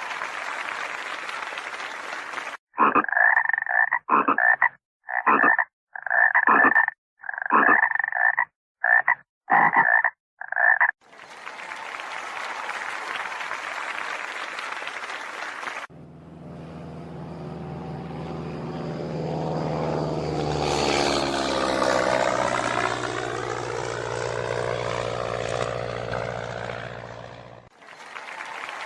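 A frog croaking in a series of about eight short, loud calls, set between stretches of even rushing noise. After that comes a different, droning sound with a steady low hum and pitch that sweeps up and down, which stops shortly before the end.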